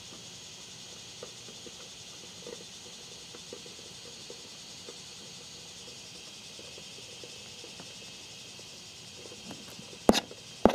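A trowel working in the crumbly soil-like substrate of a beetle larva rearing case: faint rustles and small ticks of the substrate shifting, then about ten seconds in two sharp scrapes as the blade is pushed into it. A steady high hiss runs underneath.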